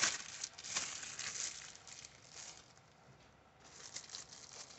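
Hands rustling and crinkling while handling and pinching off a lump of cold porcelain modelling clay, in irregular bursts, the loudest right at the start and another run near the end.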